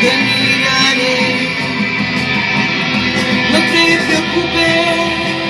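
Band improvising in rehearsal: guitar and bass guitar playing with a woman singing over them.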